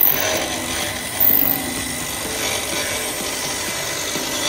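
Round dowel milling machine's motor-driven rotary cutter head shaving a thin wooden stick into a round dowel as it is fed through. It makes a steady cutting noise, with louder bursts at the start and about a second in.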